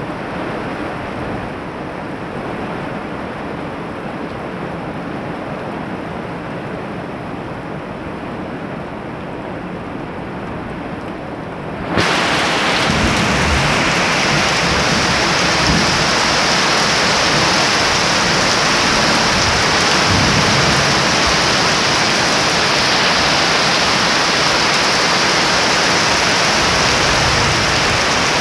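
Heavy rain pouring down in a steady rush. About twelve seconds in it abruptly gets louder and hissier, then holds steady.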